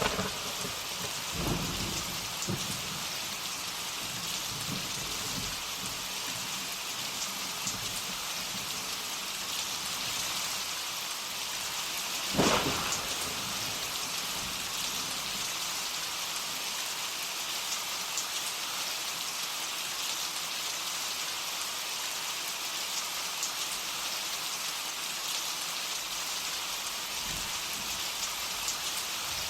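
Steady heavy rain with thunder: low rumbles in the first few seconds and one sharp thunderclap about twelve seconds in.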